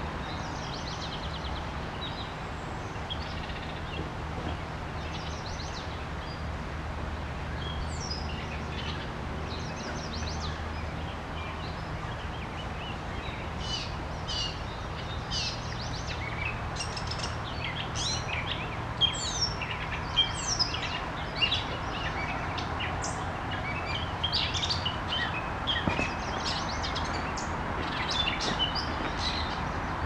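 St. Croix River water flowing steadily, with birds chirping and calling above it, the calls thicker and louder in the second half. A low steady hum runs underneath.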